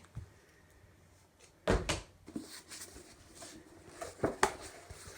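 A large cloth-bound hardback book being opened and leafed through: one solid thump a little under two seconds in, then soft rustling of matte paper pages being flicked, with a few light knocks and clicks.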